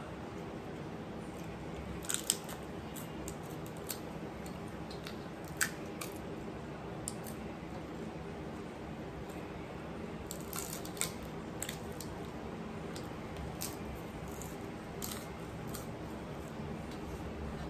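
Eating by hand: fingers gathering rice on a metal plate, with chewing, giving scattered sharp clicks and small scrapes over a steady low hum.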